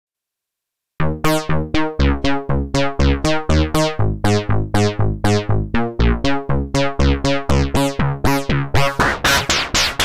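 Arturia Pigments software synthesizer playing its '80s Disco' bass preset: a fast repeating plucked bass line, about four notes a second, each note bright at the attack and quickly darkening, starting about a second in. Near the end the tone turns gritty and noisy as the preset's 'Destroyed' macro is turned up.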